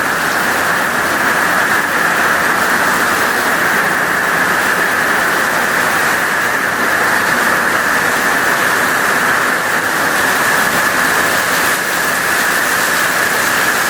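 Heavy hurricane rain pouring down in a steady, loud rush, a rainband of Hurricane Dorian passing over.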